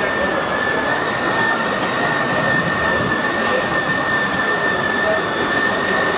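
Small electric motor and gearbox of a battery-powered toy construction vehicle running steadily, with a constant high whine over a whirring hiss.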